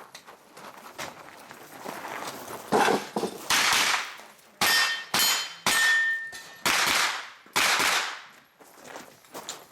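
Pistol-caliber carbine fired about seven times, the shots roughly half a second to a second apart and echoing, with steel targets ringing after several of the hits in the middle of the string.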